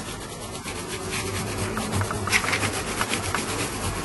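Oil pastel scratching across black 150-grit sandpaper in a run of short, quick strokes as orange is worked over the yellow to blend the colours.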